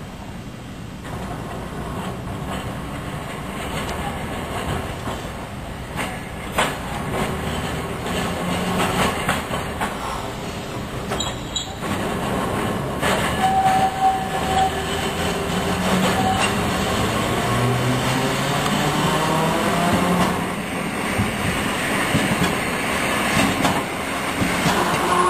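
Streetcar running along street track toward and past the listener, growing louder as it nears, with clicks of the wheels over rail joints. A whine rising in pitch builds in the last third as it arrives.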